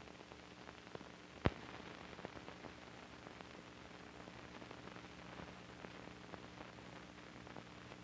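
Soundtrack hiss from an old film print, with scattered crackles and pops, one sharp pop about a second and a half in, and a faint low hum under it. This is the blank soundtrack running under a countdown leader.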